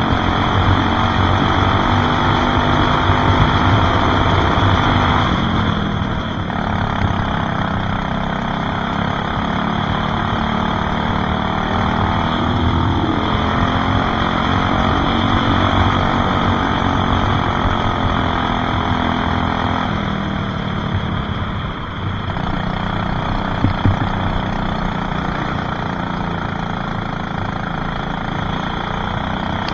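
Racing kart engine running hard, heard from on board, its pitch dipping as it slows for a corner about six seconds in and again about twenty seconds in, then climbing back as it accelerates.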